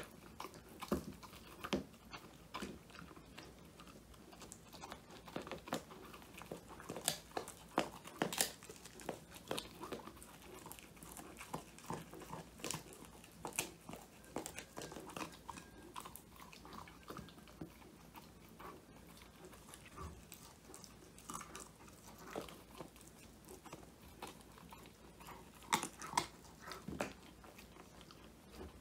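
Old English Sheepdog puppy chewing a whole-quail treat, with irregular crunches as it bites through it. Near the end there are a few louder crunches.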